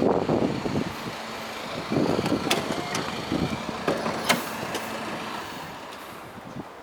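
Passenger-side sliding door of an Isuzu Elf truck cab being worked: a rattling slide with two sharp latch clicks, one about two and a half seconds in and one about four seconds in.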